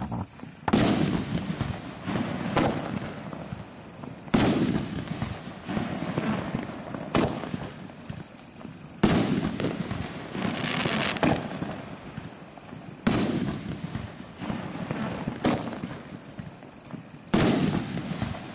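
T-Sky YOLO 9-shot firework cake firing its shots in sequence. About nine sharp reports come roughly every two seconds, each trailing off as the stars burst and burn out.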